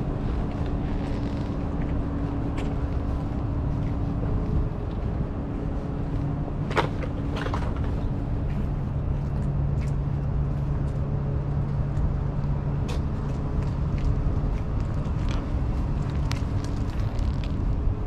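Steady urban rumble of road traffic, with a low engine drone that shifts pitch a couple of times. Scattered light clicks and taps sit on top.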